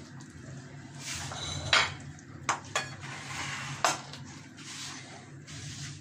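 Kitchen clatter of a stainless steel pan with a steel ladle in it being set down on the counter and a bowl being moved: a handful of sharp clinks and knocks, the loudest just under two seconds in and again near four seconds.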